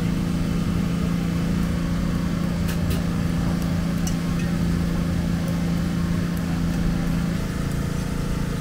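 A steady, low engine drone that shifts down slightly about seven seconds in, with a few faint clicks.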